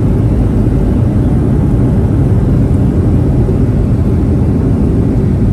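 Loud, steady rumble inside an airliner cabin as the plane rolls along the runway, with engine and rolling noise.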